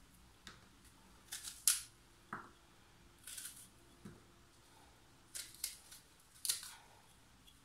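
Small kitchen knife cutting through raw quince: several short, crisp cuts spread about a second apart as the hard flesh around the core is trimmed away.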